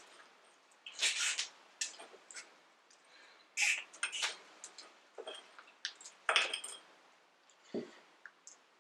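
Irregular short scrapes, clicks and rustles of hand work on a CV axle: metal parts and tools being handled and moved about.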